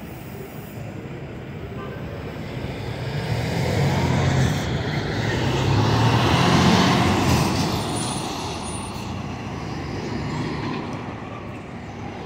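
Large truck driving past close by: its low engine sound grows louder, peaks about halfway through, then fades, over steady city traffic noise.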